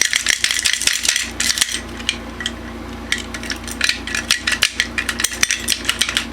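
Irregular light metallic clicks and knocks from a hex key and the metal parts of a Tama Iron Cobra bass drum pedal being worked to free a shaft bearing, coming thicker in the second half.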